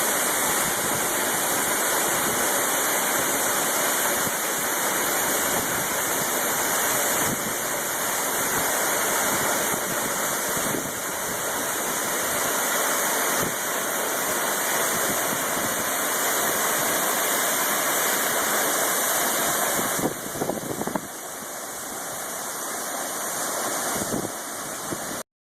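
Waterfall with a steady, even rushing of falling water. About twenty seconds in it turns somewhat quieter, with a few brief knocks.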